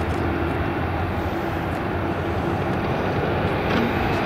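Jet airliner engines running steadily at taxi power, a steady rumble with a held droning tone: a Boeing 787-8 Dreamliner manoeuvring on the runway before take-off, with a second airliner taxiing close by.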